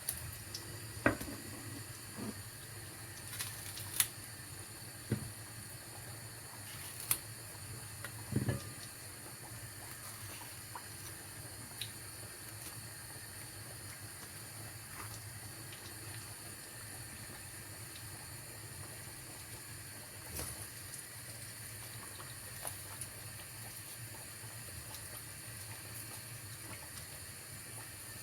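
Plantain slices frying in vegetable oil in a pan, a steady sizzle. Several sharp clicks and knocks in the first nine seconds or so, and a few more later.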